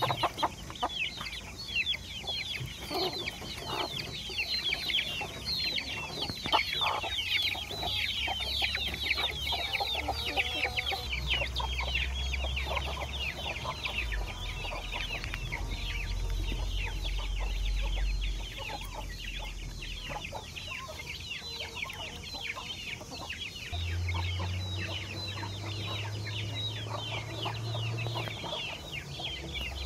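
A flock of young Aseel and Erode chicks peeping constantly, many short, high, falling cheeps overlapping one another.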